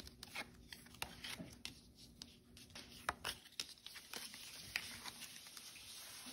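Trading cards being handled, shuffled in the hand and set down on a table mat: faint, irregular taps, flicks and brief sliding rustles of card stock.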